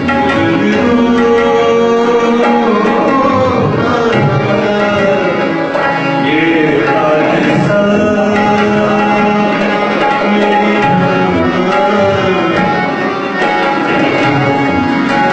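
Tabla playing in a steady, continuous music performance, with a melodic part of held and gliding notes over the drumming.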